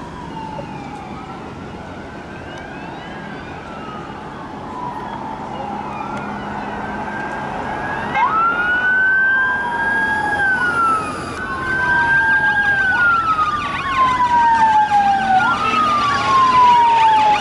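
Sirens of an unmarked police convoy approaching. Several sirens overlap faintly at first, then one grows loud from about eight seconds in. Each cycle rises quickly and falls slowly over about two seconds.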